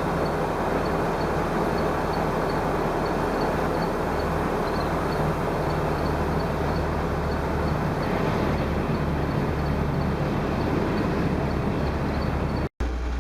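Massey Ferguson 2705 farm tractor's diesel engine running steadily under load, with a dense mechanical rattle over it and a brief gap near the end.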